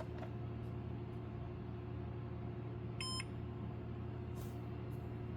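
A single short electronic beep from a digital scale, about three seconds in, over a steady low hum.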